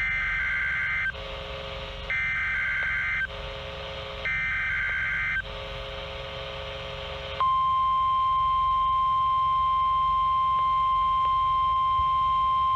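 NOAA Weather Radio warning-system test signal: three bursts of SAME digital header data, each about a second long and about a second apart, then the steady single-pitch 1050 Hz warning alarm tone starting a little past halfway and running on.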